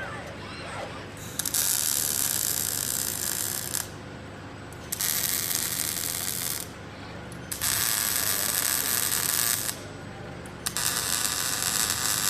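Robotic arc welding on a steel bed frame: the welding arc crackles and hisses in four runs of about two seconds each, stopping for about a second between welds, with the last run going on past the end.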